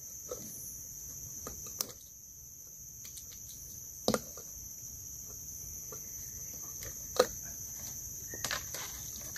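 Insects chirring in a steady, high, unbroken drone, with three sharp knocks, the loudest about four and seven seconds in.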